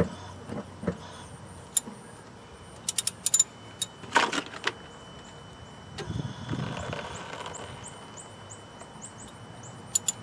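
Sharp metal clicks and clinks of a wrench on a brake caliper bleeder screw while the brakes are bled, with a short burst of noise about four seconds in.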